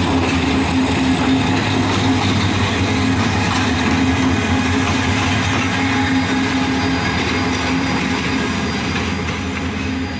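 MEI-15 diesel-electric locomotive running light past at low speed, its engine giving a steady, loud drone that eases slightly near the end as it moves away.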